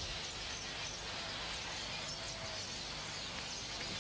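Outdoor garden ambience: birds chirping repeatedly over a steady background hiss.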